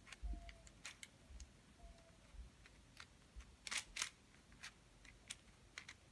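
Scattered plastic clicks from the layers of a 5x5 Rubik's cube being turned by hand, a few of them close together about four seconds in.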